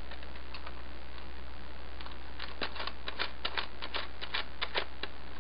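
Hard white plastic armor parts of a detonator and belt clicking and tapping against each other as they are handled for a test fit. A quick, irregular run of about fifteen light clicks comes in the second half.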